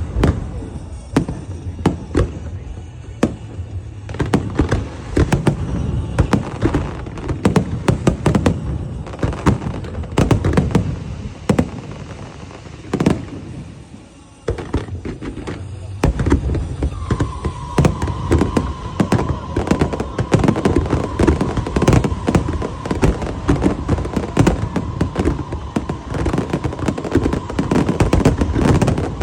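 Fireworks going off in rapid succession, a dense run of bangs and crackles that thins out about halfway, then comes back just as thick. From just past the halfway point, a steady high tone sounds beneath the bangs.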